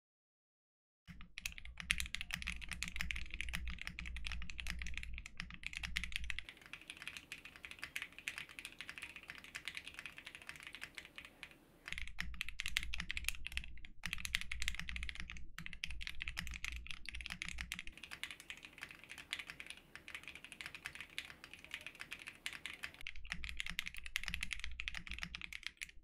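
Typing on a Portal mechanical keyboard fitted with Cow switches on a POM plate: a fast, continuous stream of keystroke clacks starting about a second in, with a few short pauses.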